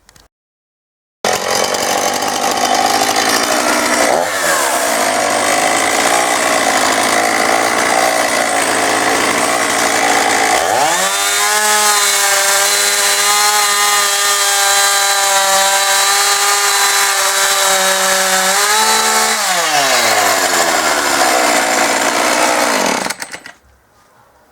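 Husqvarna 450e two-stroke chainsaw running hard, apparently cutting into wood with a rough, loaded engine note. About halfway through the engine revs up sharply and holds a high, steady scream. It then drops back, runs rough again and stops near the end. The owner says the saw's chain keeps working loose during cuts.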